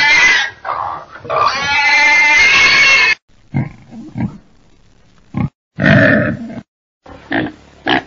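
Domestic pig squealing: two long, loud high-pitched squeals in the first three seconds, then a run of short low grunts, a shorter squeal about six seconds in, and another grunt near the end.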